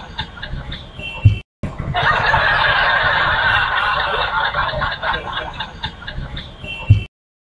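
Snickering, chuckling laughter, twice broken by a short, very loud low blast, each of which cuts off suddenly.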